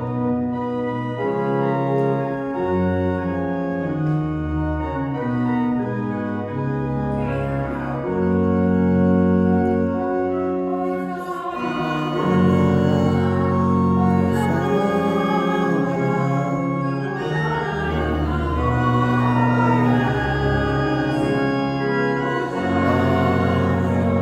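Organ playing a hymn tune in sustained chords. From about eleven seconds in, a group of voices sings along.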